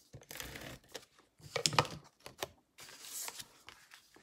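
Tape runner laying adhesive onto the back of a cardstock layer in a few short rasping strokes, with clicks and paper rustling as the layer is handled and pressed down.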